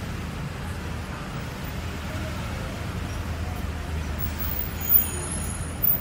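Busy city street ambience: a steady rumble of road traffic with pedestrians around. Two brief louder sounds stand out, about five and six seconds in.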